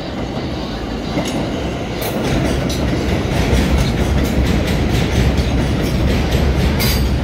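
R142A subway train running on elevated track, a heavy rumble that grows louder about two seconds in as the cars come alongside the platform, with repeated wheel clacks over the rail joints.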